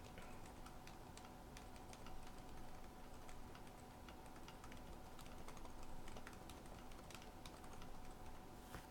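Faint, irregular keystrokes from typing on a K-Type keyboard fitted with TTC Silent Red linear switches, lubed with PFPE/PTFE grease and sprung with 72 g Sprit springs.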